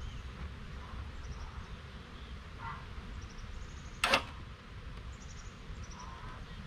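Outdoor background with a steady low rumble and faint, short high chirps from birds or insects, broken about four seconds in by one brief sharp knock, the loudest sound.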